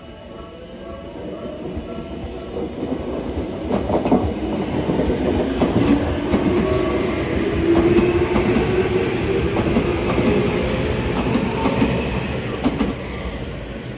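Tokyu Oimachi Line electric train passing over the level crossing, its wheels clacking over rail joints and a humming tone from the running gear, loudest through the middle. The crossing's warning bell rings at first and is drowned out as the train comes in.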